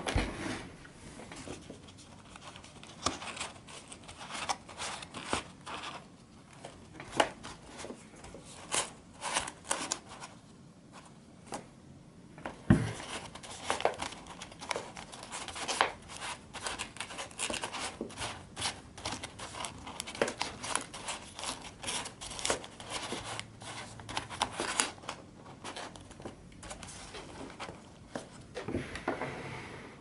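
Folded cardstock dials of an origami combination lock being turned by hand: a run of dry paper clicks, scrapes and rustles, with one louder thump a little before halfway.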